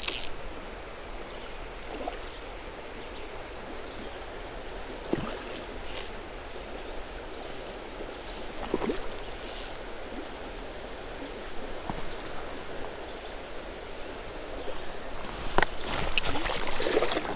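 Shallow creek water running steadily, with scattered short splashes and taps that grow louder and busier near the end.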